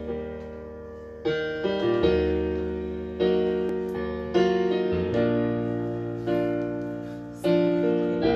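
Piano music playing slow, sustained chords, each struck and left to ring and fade before the next one about a second or two later.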